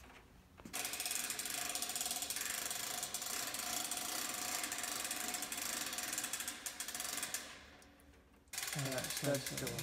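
Rapid, continuous ratchet clicking for about seven seconds, trailing off, then starting up again near the end.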